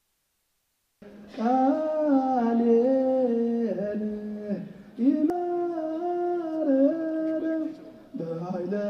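Slow singing or chanting in long held notes that step up and down over a steady low drone. It starts about a second in out of dead silence and dips briefly twice.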